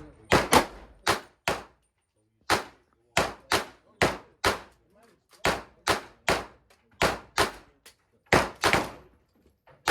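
A rapid string of gunshots in an indoor range, about seventeen sharp loud cracks, mostly about two a second with a few close pairs and short pauses.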